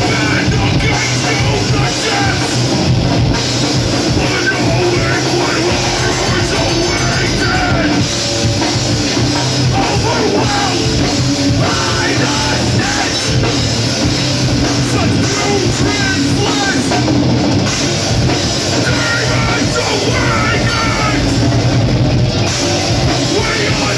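Heavy metal band playing live and loud: electric guitars, a Tama drum kit and a vocalist singing into a microphone, all in one dense, unbroken wall of sound.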